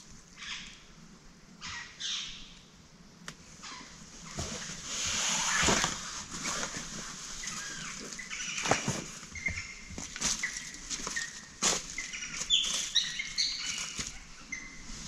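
Rustling and scraping of dry leaf litter and a backpack being handled and set down, with footsteps and a few sharp knocks. Short, high bird chirps come in during the second half.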